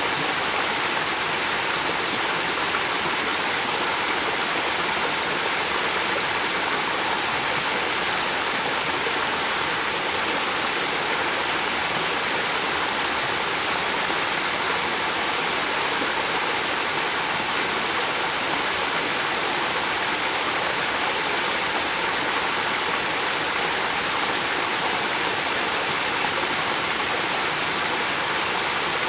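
A river flowing steadily, a dense, even rush of running water.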